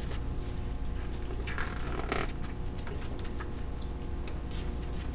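Pages of a hardcover picture book being handled and turned, with a papery rustle about one and a half to two seconds in and a few light clicks, over a steady low hum.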